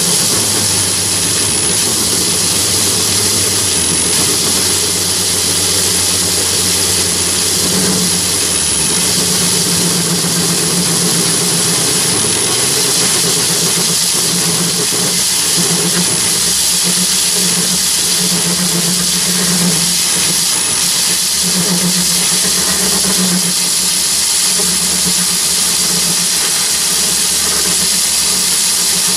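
Myford lathe running with a drill cutting into a spinning steel workpiece: a steady loud whir and hiss with a constant thin high-pitched whine, and a low hum that swells and fades every second or so from about eight seconds in as the cut goes on.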